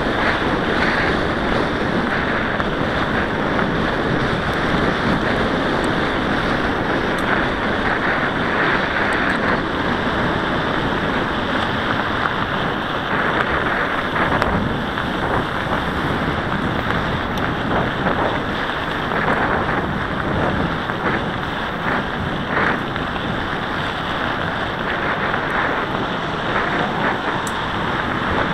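Steady wind rumble over the microphone of a camera on a moving mountain bike, with the bike's tyres rolling on asphalt mixed in.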